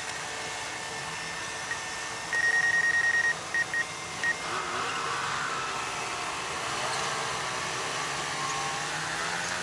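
Drone remote controller giving a high electronic warning beep, pulsing rapidly for about a second and then three short beeps, over a steady background rush. The beeping comes just as the pilot notices signal interference.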